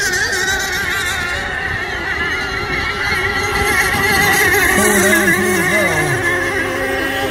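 Engines of several radio-controlled racing boats running at full throttle, high-pitched whines that waver in pitch as the boats run the course. About five seconds in a lower tone wobbles and falls as a boat passes close.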